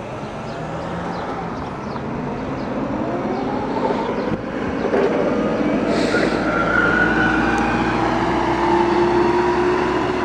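Propane forklift engine running as the forklift drives past on the street, getting louder and rising steadily in pitch as it speeds up; a car passes at the start.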